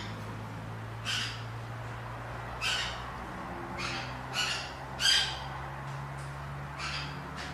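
A bird calling repeatedly in short calls, about once a second, over a steady low hum.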